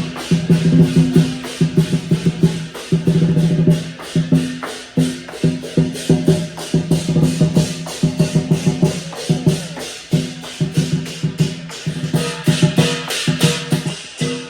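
Background music with a quick, steady percussive beat over a repeating low bass line.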